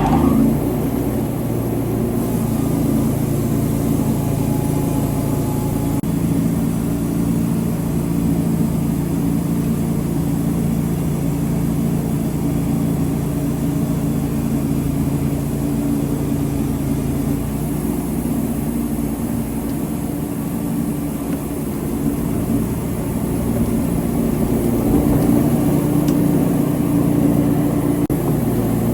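An engine running steadily, its pitch shifting slightly a little past halfway.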